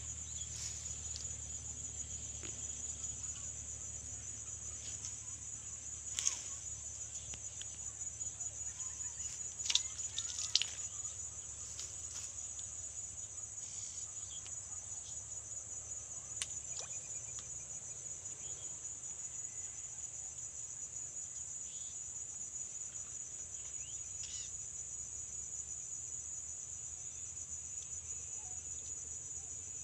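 A steady, high-pitched chorus of insects buzzing without a break, with a few faint clicks about six and ten seconds in.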